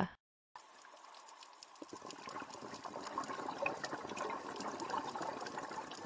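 Underwater water noise: a rushing hiss dotted with many small crackling clicks. It fades in about half a second in and swells slowly.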